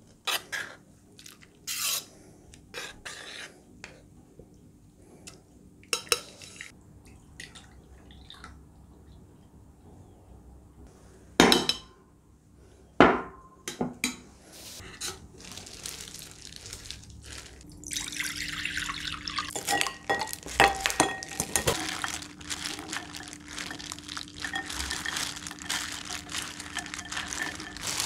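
Stainless steel mixing bowl clinking and scraping under a metal spatula as freshly churned butter grains are worked and separated from the buttermilk, with two sharp knocks about halfway. From about two-thirds through, continuous crinkling of plastic wrap as the wet butter is squeezed together.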